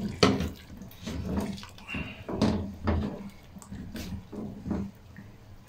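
A silicone-tipped spatula stirs raw chicken pieces through wet, oily masala in a pot: irregular scrapes against the pot and wet squelches, a couple a second. The chicken is being fried in the masala (bhuna).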